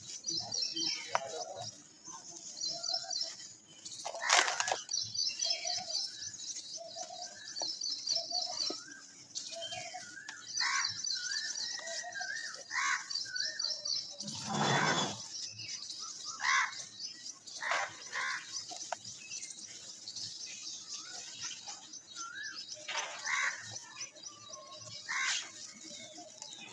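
Dry red dirt lumps crushed and crumbled by hand in a metal bowl: gritty crunches and falling powder, with one louder crunch about halfway through. Birds chirp in rapid repeated trills in the background.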